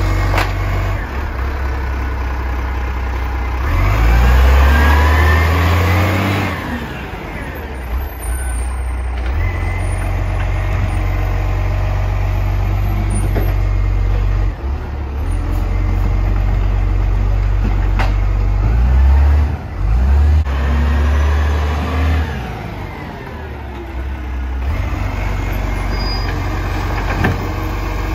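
Garbage truck engine running steadily at low revs, rising in level and pitch twice for a couple of seconds each, about four seconds in and again near twenty seconds in.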